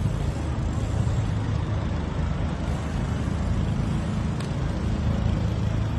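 Steady low rumble of city road traffic, with one faint click about four and a half seconds in.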